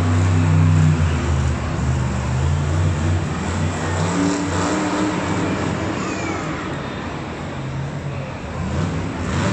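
Monster trucks' big supercharged V8 engines running and revving in a deep, loud rumble. The strongest rev comes right at the start and eases off about a second in.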